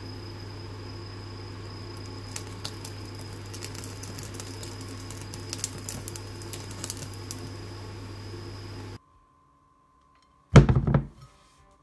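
Candle flames burning under skewered meat, with scattered sharp crackles and pops over a steady low hum. The sound cuts off about nine seconds in, and about a second and a half later comes a single loud, dull thud.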